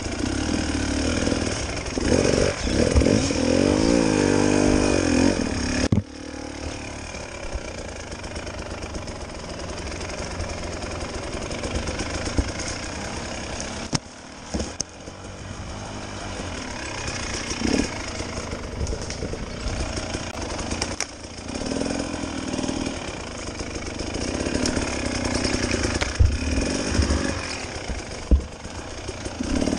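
Dirt bike engine under the rider, revving up and down in the first six seconds, then dropping to a lower, steadier run with slow throttle swells as the bike picks along rough trail. A few sharp knocks are mixed in.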